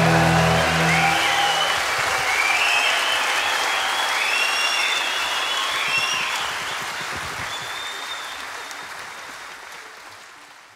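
Concert audience applauding and cheering with shrill whistles, after the band and orchestra's final chord dies away in the first second. The applause fades out near the end.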